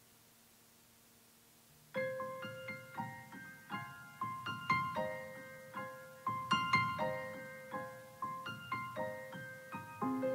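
Piano music: a slow melody of separate struck notes that starts suddenly about two seconds in, after a faint steady hum.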